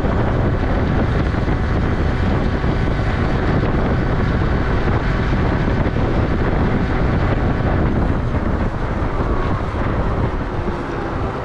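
2001 Yamaha Vino scooter engine running steadily under load, climbing a hill at about 30 mph, with wind buffeting the microphone. The sound drops a little near the end.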